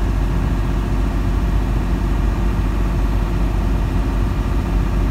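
Tractor-trailer engine and road noise heard from inside the cab while cruising on the highway: a steady low drone with no change in pitch.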